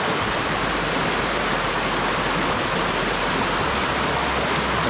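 Shallow river water rushing and splashing over rocks: a steady, even rush.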